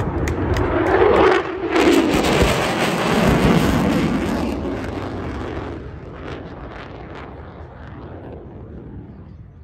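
Fighter jet passing low overhead: a loud rush of jet noise with a sweeping whoosh in the first couple of seconds, then fading steadily as the jet climbs away.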